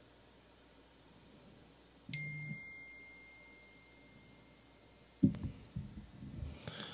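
A single bright ding about two seconds in: a sharp strike followed by one clear high ringing tone that fades away over a couple of seconds. Near the end, a loud low thump and a few duller knocks.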